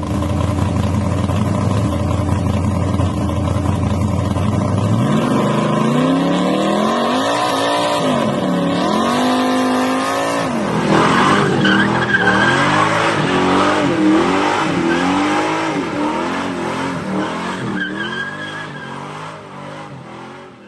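Car engine running steadily, then revving up and down again and again, with tyre squeal over the revs from about halfway in. It fades out near the end.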